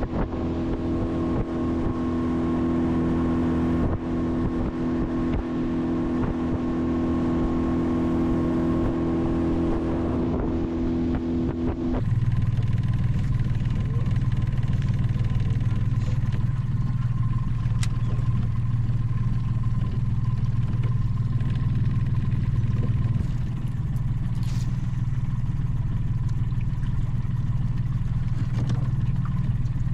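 Mercury outboard motor running steadily as the boat travels. About twelve seconds in, the note changes abruptly: the higher hum drops away and a lower, slightly louder one takes over.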